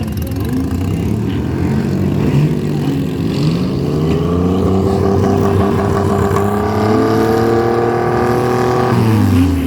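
Demolition derby car engines running. One revs up about three seconds in, holds a high, steady pitch for several seconds, then drops sharply near the end.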